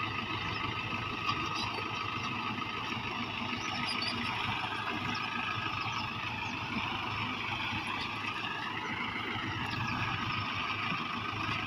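Mahindra tractor diesel engines running steadily, with a brief rise and fall in pitch about eight seconds in.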